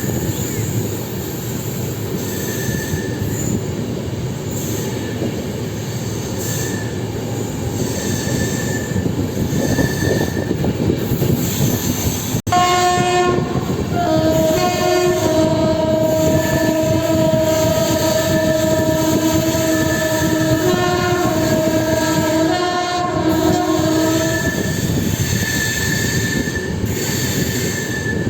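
LHB passenger coaches running fast over the track, a steady running noise with faint intermittent wheel squeal. About halfway, after a brief break, the WAP-7 electric locomotive's horn sounds one long blast of about ten seconds, wavering slightly in pitch, and then the running noise carries on.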